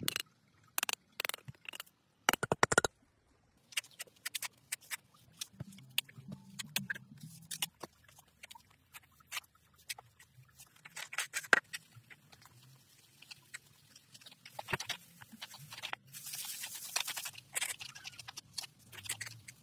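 Masonry trowel work: irregular taps and clicks of a trowel on concrete blocks, then scraping as wet cement render is smoothed onto the block wall, with one longer scrape near the end.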